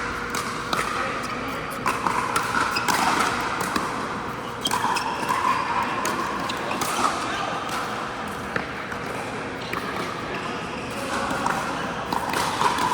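Pickleball paddles striking the ball and the hollow plastic ball bouncing on an indoor court: sharp knocks at irregular intervals over a background murmur of voices in a large hall.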